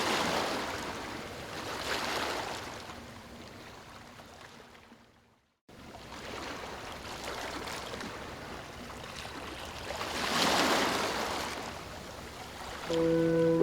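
Ocean waves washing in and drawing back in slow surges. The sound fades down to a moment of silence about five seconds in, then builds again to a large wave about ten seconds in.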